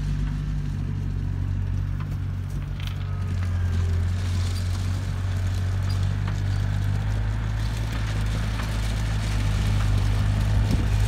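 Bobcat skid-steer loader's diesel engine running steadily with a low, even drone while the machine drives over gravel, with a few faint clanks.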